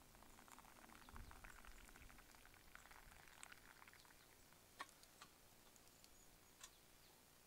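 Hot water poured in a thin stream from a kettle into a wooden kuksa cup: a faint trickling fizz that stops about four seconds in, followed by a few faint sharp clicks.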